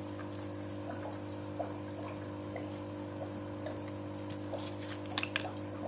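Faint ticks and light handling noise from a clear plastic LED strobe light bar and its tape being handled, with two sharper clicks a little after five seconds, over a steady low electrical hum.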